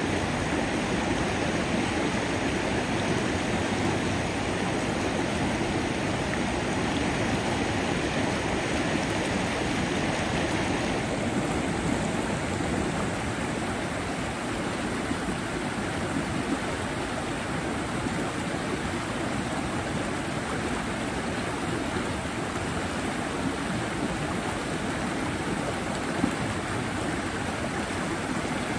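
Water flowing steadily in a stream, a constant rushing hiss. About eleven seconds in, its higher hiss turns a little duller.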